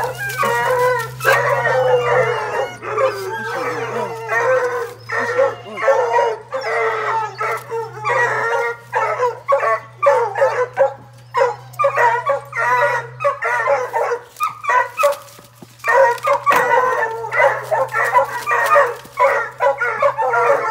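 Many kennelled hounds barking and baying together, overlapping calls with hardly a break.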